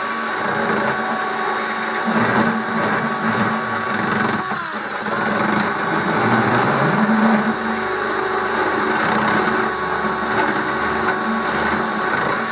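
Power drill spinning a grinding bit, enlarging a drilled hole for a switch mount. It runs with a steady high whine that dips in pitch briefly about four and a half seconds in, then picks back up.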